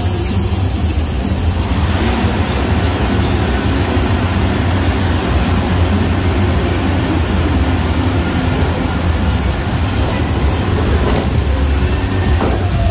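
Studio-tour tram rolling along, a steady loud low rumble, with a hiss that comes in about two seconds in.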